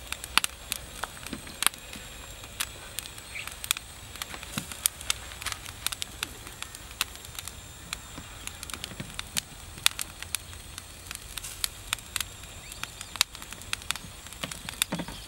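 Charcoal embers under a spit-roasted whole pig crackling, with sharp, irregular pops several times a second.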